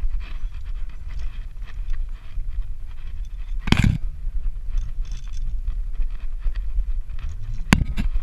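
Climbing rope and carabiners scraping and clinking against a harness-mounted camera during a hauled, free-hanging rope ascent, over a steady low rumble. Two sharp metal clanks, the louder about four seconds in and another near the end.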